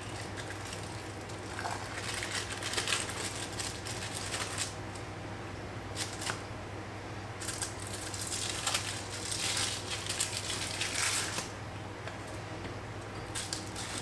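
Rustling and crinkling of a thin backing sheet as puff pastry circles are peeled from it and the scraps lifted away, in several irregular bouts with a longer stretch midway, over a steady low hum.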